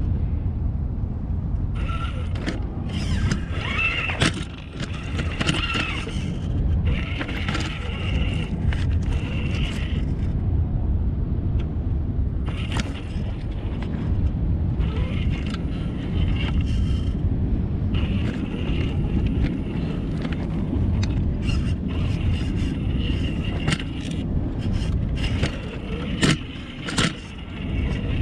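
A radio-controlled car's electric motor and gears whining in spurts as it drives over rocks, with knocks and scrapes of wheels and chassis on stone and a steady low rumble underneath.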